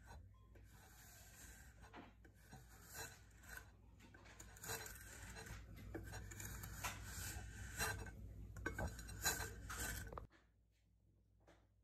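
Hard cheese being grated on a metal box grater: a run of uneven rasping strokes that grow stronger, then stop abruptly about ten seconds in.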